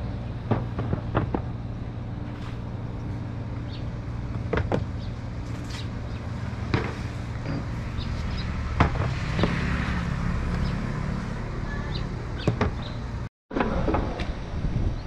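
Scattered light knocks and taps as slabs of mullet roe and wooden drying boards are handled, with a brief rustle about nine seconds in, over a steady low rumble.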